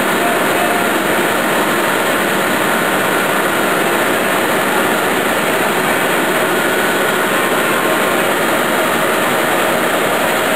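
Liquid solid separator running, with filtered liquid pouring from its outlet spout into a floor drain: a loud, steady rushing noise with faint steady machine tones under it.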